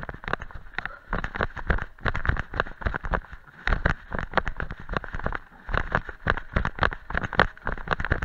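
Trail-running footsteps on a fast downhill: a quick, irregular run of thuds and scuffs of running shoes striking a dry, stony dirt path, heard from a chest-harness camera.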